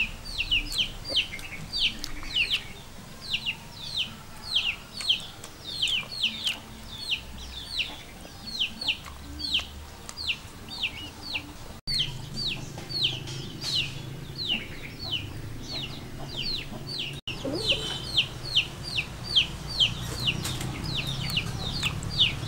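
Chicks peeping steadily: short, high, falling peeps at about three a second.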